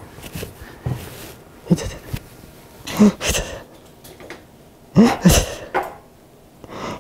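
A man's short, breathy non-word vocal sounds, groaning exhalations in several bursts, the loudest about three and five seconds in, as he reacts to being cold.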